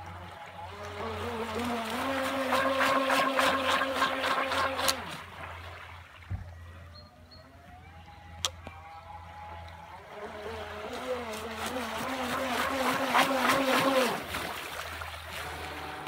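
The motor of a 1/12-scale Blue Bird K4 model hydroplane whines through two fast runs. Each run rises in pitch and loudness over a second or two, holds with a fast rattle over it, then cuts off abruptly. A single sharp click comes about halfway between the runs.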